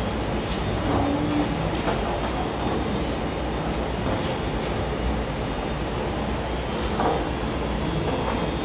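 Steady loud background rumble and hiss, with a few light taps of a kitchen knife on a plastic cutting board while shirako is trimmed.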